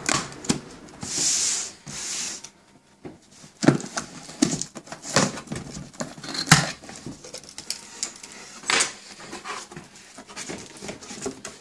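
Cardboard shipping box being forced open by hand, with a key used on the packing tape: a scraping tear about a second in, then irregular knocks, clicks and rustles of cardboard and packing.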